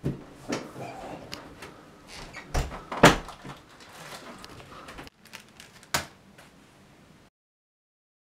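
An interior door being opened, with a string of sharp knocks and clicks, the loudest about three seconds in, and the sound cuts off suddenly about seven seconds in.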